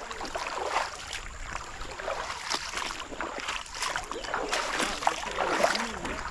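Stream water running, with scattered small splashes and clicks.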